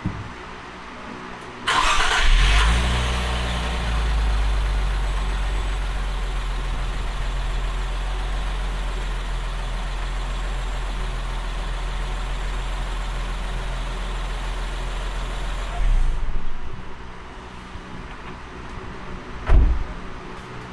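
A 2024 Nissan Z's 3.0-litre twin-turbo V6 is cranked and catches about two seconds in, flares briefly, then idles steadily with its sump freshly refilled after an oil change. It is switched off about sixteen seconds in. A single thump comes near the end.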